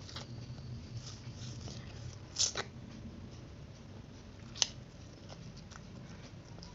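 Close-up eating sounds of fried instant noodles being slurped and chewed: many small wet mouth clicks and smacks, with two sharper clicks about two seconds apart near the middle.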